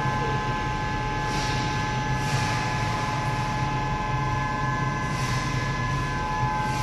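Medium-frequency induction melting furnace running: a steady high whine made of several constant tones over a low hum and a rush of noise that swells briefly a few times.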